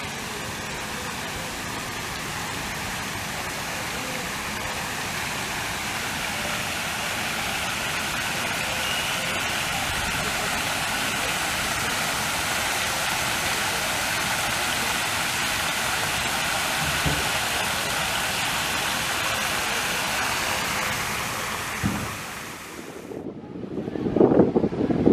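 Steady rushing noise of running water, slowly growing a little louder. Near the end it gives way to wind buffeting the microphone.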